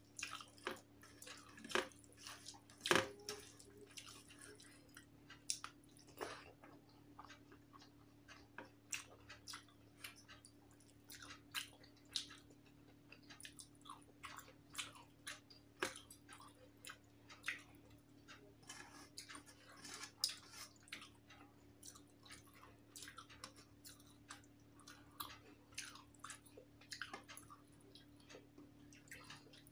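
Close-up eating sounds: wet chewing, lip smacks and small mouth clicks of someone eating rice mixed with curry by hand, with soft squishes of fingers mashing rice on a steel plate. A faint steady low hum runs underneath.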